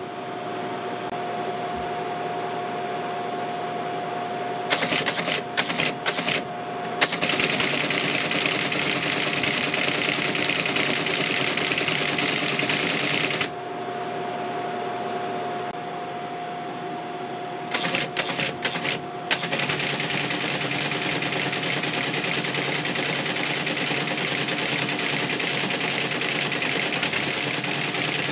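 Teletype ASR 33 printing: a steady, dense clatter of its type mechanism over the hum of its running motor. The clatter breaks up briefly twice, once about five seconds in and again a little past the middle.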